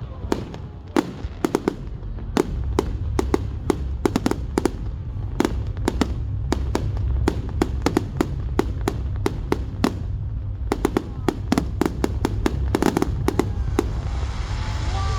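Aerial fireworks going off in a rapid barrage: dozens of sharp bangs and cracks, often several in quick succession, over a steady low rumble.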